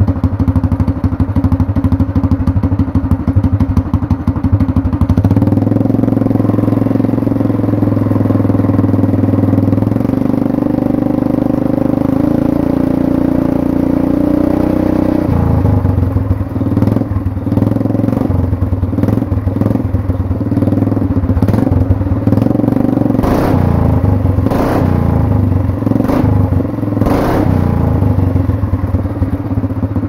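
Tillotson 212cc single-cylinder four-stroke go-kart engine running loud through a 3-foot straight-pipe header. About five seconds in, the engine note steadies and holds higher for about ten seconds, then drops abruptly. After that it runs unevenly, with a series of sharp cracks or pops in the later part.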